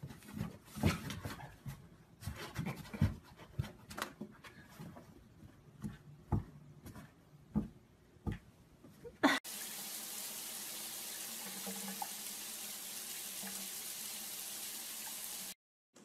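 Irregular light taps and knocks of a cat's paw batting at a toy poking out of a hole in a cardboard box, ending in a short rising squeak. About nine seconds in, a steady hiss starts, lasts about six seconds and cuts off abruptly.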